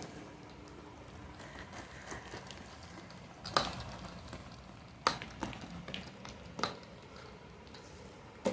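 Thick ground urad dal paste being beaten by hand in a bowl: soft wet squelching with a few sharper slaps at uneven intervals. The batter is being whipped to work air into it.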